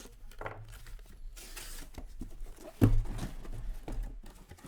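Foil trading card packs being torn open and the cards rustling as they are handled, with one sharp thump about three seconds in.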